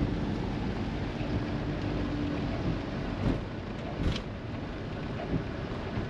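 Motorhome cab noise while driving slowly in the rain: a steady low rumble of engine and tyres on a wet road, running onto cobbles. A faint steady hum is there for the first two seconds or so, and two short knocks come about three and four seconds in.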